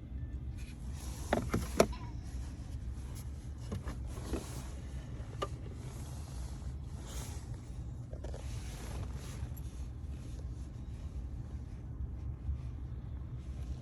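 Steady low hum inside a pickup truck's cabin, with a few sharp clicks and short rustles of handling. The loudest clicks come about one and a half to two seconds in.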